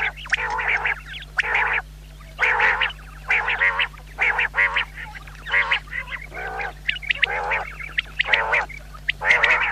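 Quail calling, a series of short calls at uneven spacing, somewhat more than one a second, over a steady low hum.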